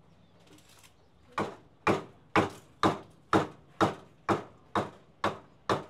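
Meat cleaver chopping tough strips of food on a round wooden chopping block: about ten sharp, even chops, two a second, starting about a second and a half in.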